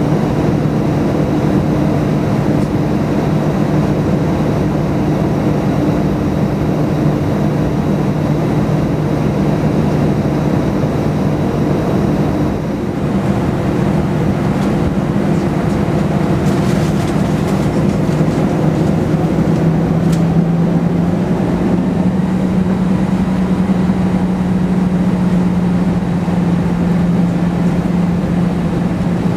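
Airbus A319 jet engines running while taxiing, heard from inside the cabin near the front: a steady hum with several low tones, which step up slightly in pitch about twenty seconds in.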